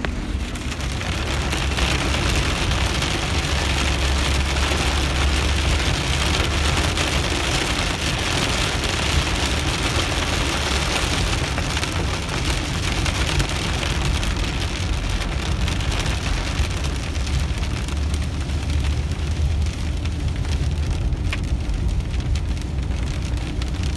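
Rain hitting the windshield and roof of a moving vehicle, heard from inside the cab, over a steady low rumble of engine and tyres on the wet road. The rain is heaviest in the first half and eases later.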